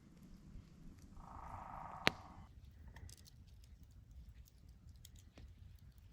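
Campfire crackling softly with scattered faint ticks, and one sharp pop about two seconds in. A brief faint tone sounds just before the pop.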